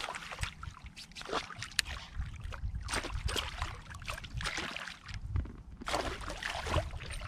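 Water splashing and sloshing at the surface as a small hooked fish thrashes beside a float tube during the fight. The splashes come in irregular rushes over a low rumble.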